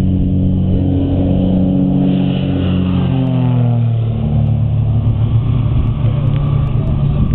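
Twin-engine light propeller airplane at takeoff power, its engines and propellers running loudly; about three seconds in the pitch drops as it passes by, then holds steady at the lower pitch.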